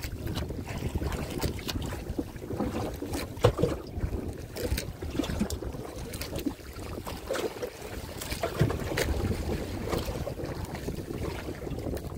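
Wind on the microphone and water sloshing around a small boat, with scattered light knocks and splashes throughout.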